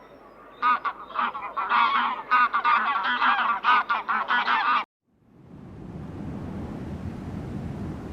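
A flock of domestic fowl calling in a dense, overlapping chorus of honking calls, cut off abruptly about five seconds in. After a moment of silence, a steady rushing noise fades in and slowly grows.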